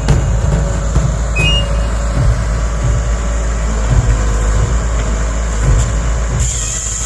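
Heavy equipment engine running steadily with a low, uneven rumble, the machine driving a homemade hydraulic chainsaw; a hiss comes in near the end.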